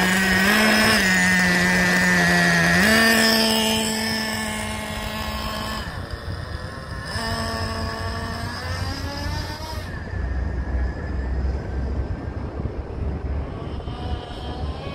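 Traxxas Revo 3.3 nitro truck's small two-stroke glow engine running loud and close, its revs stepping up and down. It then fades as the truck drives off, with a few rising revs heard faintly far away. The low-speed needle is set too lean from the factory, which makes the engine sound horrible and damages it.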